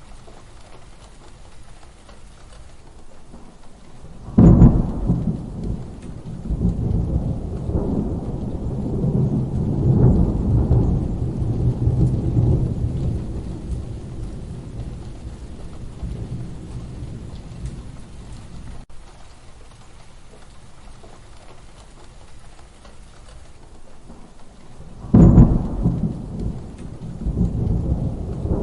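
Steady rain with two thunderclaps: a sharp crack about four seconds in that rumbles on for several seconds before fading, and a second sudden crack near the end.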